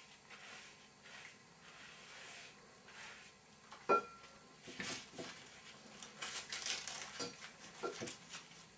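Paintbrush strokes scratching papier-mâché paste onto a balloon and swishing in an enamel bowl, with the brush knocking the bowl in a sharp, briefly ringing clink about four seconds in and a lighter one near the end.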